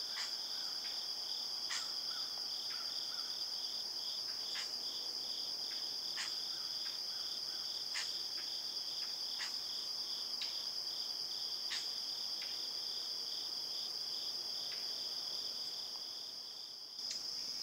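A steady insect chorus, crickets and other insects: a continuous high shrill with a second, pulsing trill beneath it and a few scattered short clicks. It dips briefly shortly before the end.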